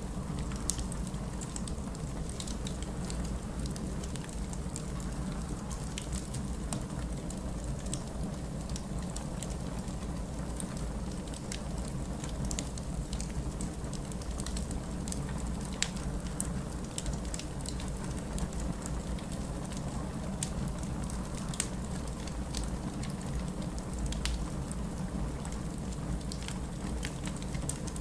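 Wood fire in a fireplace crackling, with irregular sharp pops and snaps scattered throughout over a steady low rumble.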